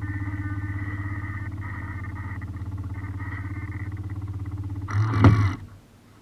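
A steady low mechanical hum with a fast ticking. About five seconds in it swells into a brief loud burst with a falling tone, then stops.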